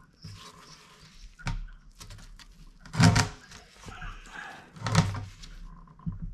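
Plastic fuel tank and fuel pump assembly being handled and forced into the tank's opening: rubbing and handling noise with a small knock, then two loud dull knocks about two seconds apart. The assembly is stuck and will not slide in any further.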